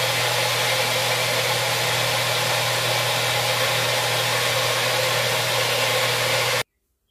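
Magic Bullet blender motor running steadily, blending mango, ice and milk into a smooth shake. The whirring cuts off abruptly near the end.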